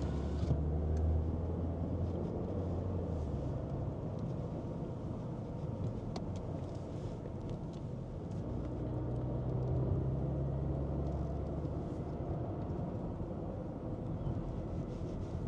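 Car driving, heard from inside: a steady low rumble of engine and road noise that swells twice.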